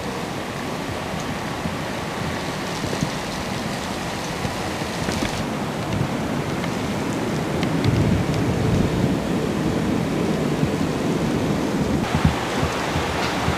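Steady rushing outdoor noise on a camcorder microphone, with low rumbling gusts about eight seconds in and again near the end.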